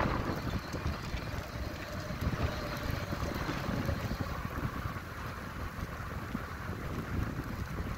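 Wind buffeting the microphone of a phone on a moving bicycle, with the tyres rolling over an asphalt path: a steady rushing noise with a gusty rumble underneath.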